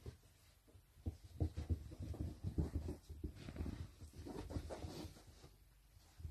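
Two miniature dachshund puppies scuffling and tugging over a cloth toy on carpet: faint, irregular soft thumps and rustles, with short pauses near the start and near the end.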